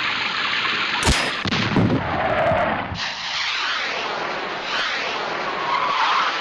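Water rushing and splashing over a Lego model as it floods, a loud, steady noise, with sharp knocks about a second in and again shortly after.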